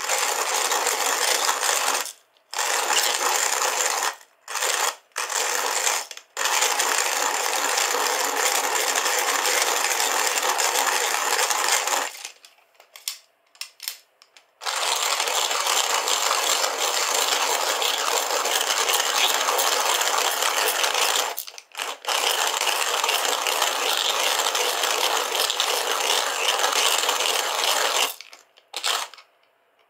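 Kalita hand-cranked coffee mill grinding coffee beans: continuous grinding as the crank turns. It stops briefly several times, and for about two seconds near the middle, where a few clicks are heard.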